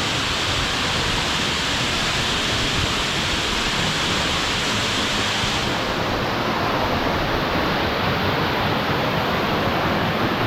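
Waterfall, water rushing steadily. About six seconds in the rush turns duller, losing its hiss.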